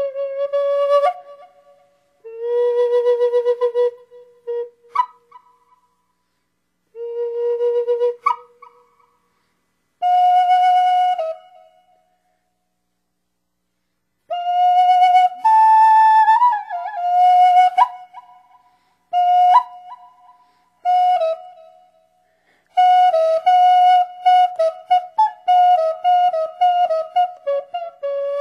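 Solo flute playing slow, held notes in separate phrases with pauses between them, then a quicker run of short notes in the last few seconds.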